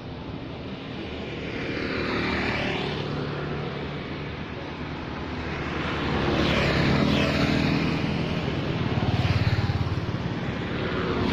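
Road traffic passing close by: several vehicles, motorbikes among them, go past one after another, each swelling and fading over a steady low engine rumble.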